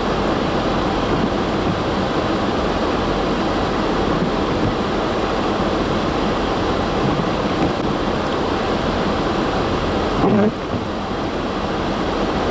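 Steady loud rushing noise of wind and road while travelling on a snowy interstate in high winds, with a brief louder bump about ten seconds in.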